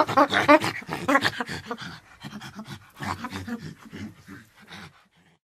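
Chimpanzee panting: a rapid, rhythmic run of breathy pants that grows quieter and stops about five seconds in.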